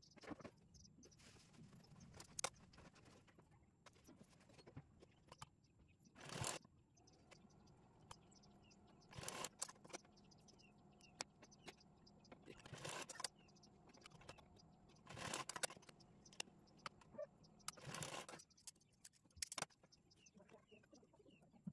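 Quiet handling sounds: short rustles and scrapes of quilted fabric and cord being folded by hand, a brief burst every two or three seconds.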